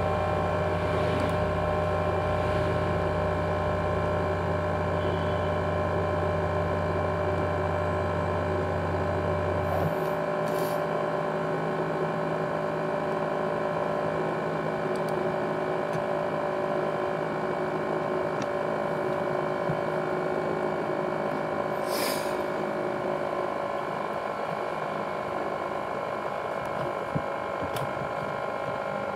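ASUS X543UA laptop running with a loud, steady whine of several tones, the 'jet engine' noise of a broken-down laptop. A low hum beneath the whine stops about ten seconds in.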